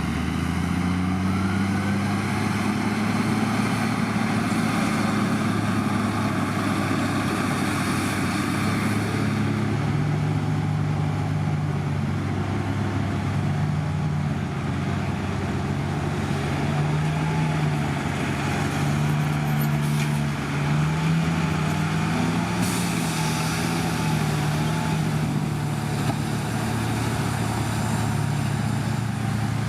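Heavy diesel engine of earthmoving machinery running steadily under load, its pitch drifting up and down as the load changes.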